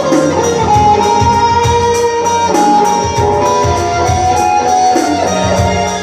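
Instrumental break of a Bengali folk song on an electronic keyboard: a held melody line in a plucked-string tone over a steady drum beat.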